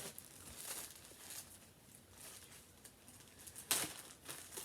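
Intermittent rustling of clothing and plastic packaging being handled, with one louder rustle a little over three and a half seconds in.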